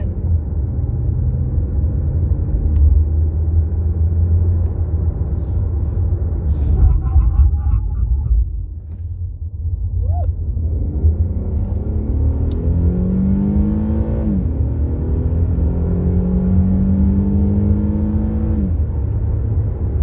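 Inside the cabin of an Infiniti sedan: steady low road and tyre rumble, easing briefly about halfway through. Then the engine climbs in pitch under acceleration, dropping back twice as the automatic gearbox upshifts.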